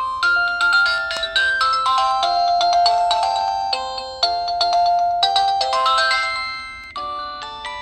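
Samsung SPH-A640 phone playing one of its default ringtones through its speaker: a melody of quick, bright notes, several sounding at once. The tune fades briefly about seven seconds in, then starts up again.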